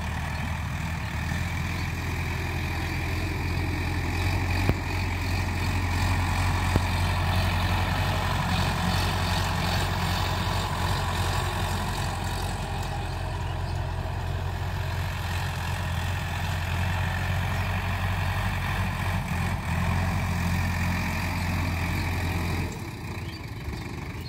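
Tractor diesel engine running steadily while the tractor drives a rotary tiller across the field. The engine sound drops noticeably in level a little before the end.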